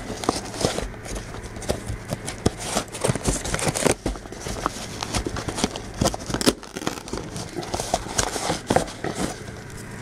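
Scissors cutting open a hand-stitched, wax-sealed cloth mailing bag: a steady string of irregular snips, clicks and crackles.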